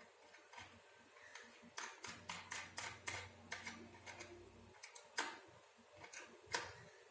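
Faint, quick metallic clicks and ticks from twisting the small three-jaw chuck of a mini hand drill between the fingers: a fast run of clicks, about five a second, starting about two seconds in, then a few louder single clicks near the end.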